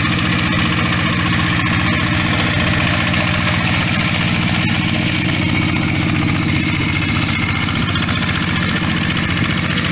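Yanmar hand tractor's single-cylinder diesel engine running steadily with an even, rapid chug as the tractor plows through wet paddy mud.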